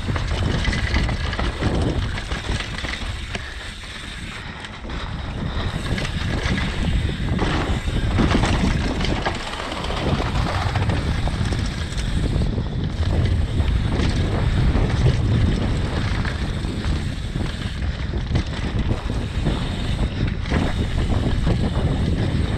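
Downhill mountain bike descending a dirt forest trail at speed: wind rushing over the camera microphone, tyres on loose dirt, and the bike rattling and knocking over bumps.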